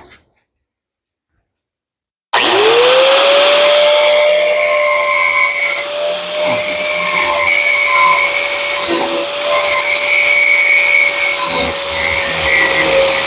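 Electric angle grinder switched on about two seconds in, spinning up quickly to a steady whine, then grinding down the weld where the kickstand is welded to the minibike's steel frame, the level dipping briefly a few seconds after it starts.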